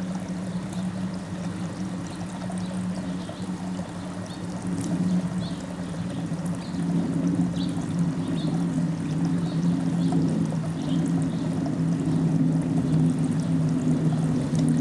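A loud, steady low drone that sags slowly in pitch and starts to rise near the end, with faint short chirps of small birds scattered through it.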